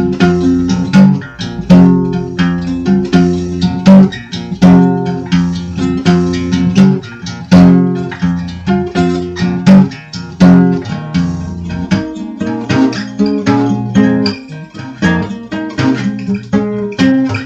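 Acoustic guitar music, strummed and plucked chords in a slow repeating pattern, with the low notes thinning out about twelve seconds in.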